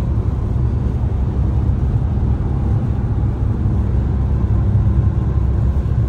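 Steady low rumble of a car driving at motorway speed, tyre and engine noise heard from inside the cabin.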